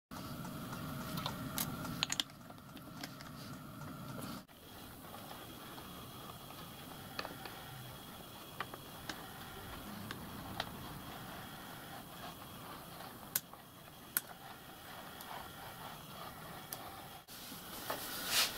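Scattered light clicks and taps of small brass and steel locomotive valve parts being handled, over a faint workshop background.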